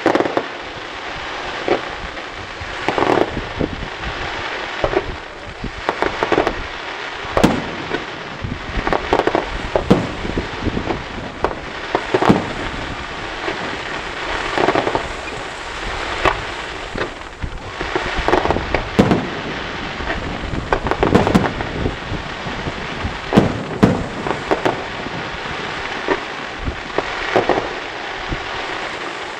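Professional aerial firework display: shells bursting in sharp bangs about once a second over a continuous crackling from crackling stars.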